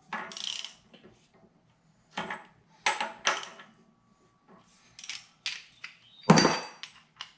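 Socket ratchet clicking in short strokes while the crankshaft pulley bolt is tightened, then a louder clatter of metal tools being handled about six seconds in.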